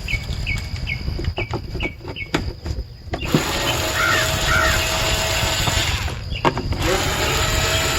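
Clacks of a plastic HVAC case being handled, with birds chirping in the background. About three seconds in, a cordless drill/driver with a 9/32 bit starts whirring steadily to back out the case screws; it stops briefly and starts again near the end.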